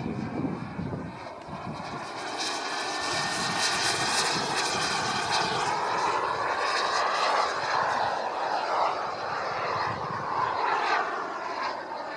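Radio-controlled model jet in flight: a steady rushing whine whose pitch rises and falls, getting louder about two seconds in.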